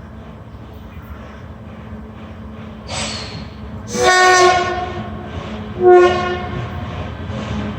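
Horn of the electric locomotive E68062 hauling a container train, sounded in two blasts about two seconds apart, the first longer and loudest, over the steady low rumble and hum of the approaching train.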